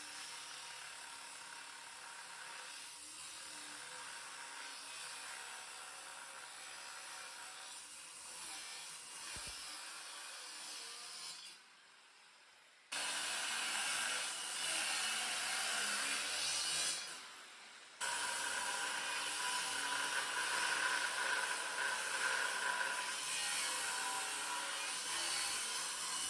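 A power tool cutting or grinding steel, running in three stretches: a quieter one, then two louder ones after short pauses.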